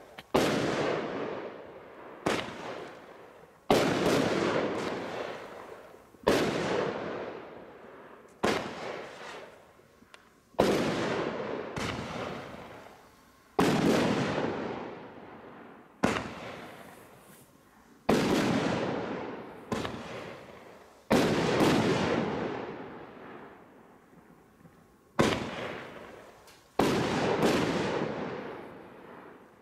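Bright Star Atom Bombs double-burst Roman candles firing: a sharp, loud burst report every two or three seconds, some coming in close pairs, each fading away slowly.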